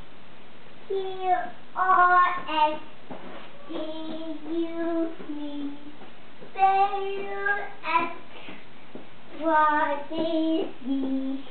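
Young boy singing a song, in four short phrases of held notes with pauses between.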